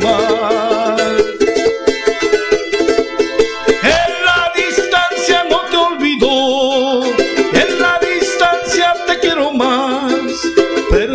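A man singing a slow, mournful Spanish-language song with heavy vibrato, accompanying himself strumming a charango.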